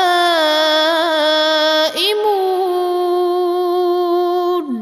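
Male Quran reciter chanting in a long, melodic held note, drawing out the verse-ending word 'nā'imūn' with small ornaments in the melody. The voice briefly breaks about two seconds in, then holds a steady note and slides down in pitch at the very end as the verse closes.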